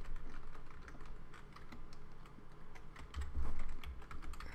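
Typing on a computer keyboard: a quick, uneven run of key clicks, with a low thud about three and a half seconds in.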